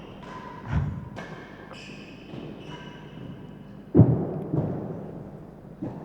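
A real tennis rally: the hard, solid ball cracking off rackets and thudding off the court's walls, four impacts with the loudest about four seconds in, and short high squeaks between them, likely shoes on the court floor.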